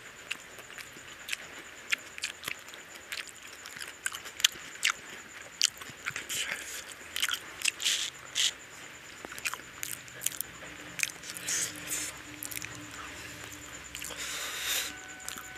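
Close mouth sounds of someone eating rice and curry by hand: wet chewing and lip smacks, with many short sharp clicks scattered irregularly throughout. Near the end comes a longer soft wet squish of fingers mixing rice and curry on the plate.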